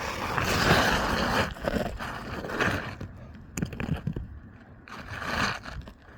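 Roofing shingles scraping and rustling as they are handled and slid into place, in three long scrapes with a few light knocks between them.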